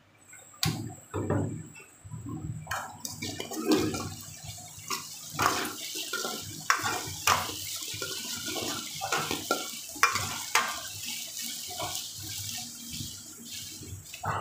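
Drained, boiled vegetables sizzling in hot oil in a kadhai, with a metal ladle clacking and scraping against the pan many times as they are stirred and tossed.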